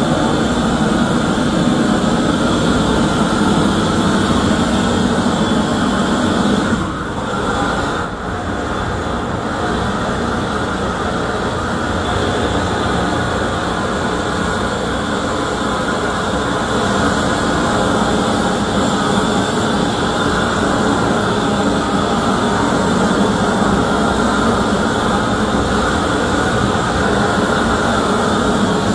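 Hose-fed propane wand torch burning steadily with a loud rushing hiss as its flame scorches plywood. The flame sound dips briefly about seven seconds in, then carries on.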